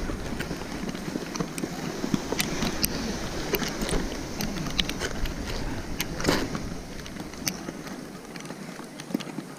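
Snowboard scraping over snow, with scattered small clicks and knocks from the bindings and gloves, and one louder scrape about six seconds in.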